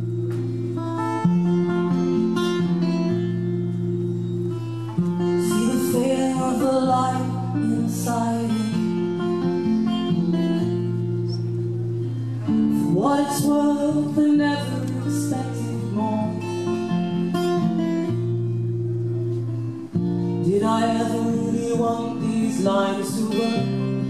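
Live music: acoustic guitars strummed with singing that comes in phrases over the chords.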